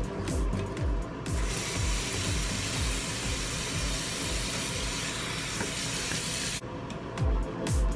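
Bathroom tap running into the sink with a steady hiss, starting a little over a second in and stopping about a second before the end, over background music with a steady beat.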